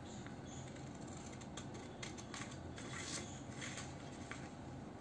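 Scissors cutting through a folded sheet of paper: several faint snips with paper rustling, from about a second and a half in.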